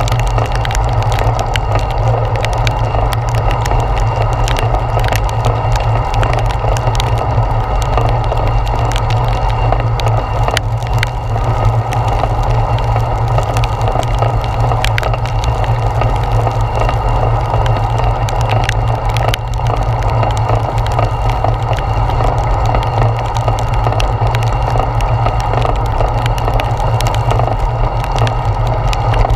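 Steady noise of a bicycle riding on a wet road in heavy rain, picked up by a handlebar-mounted GoPro, with scattered faint ticks throughout.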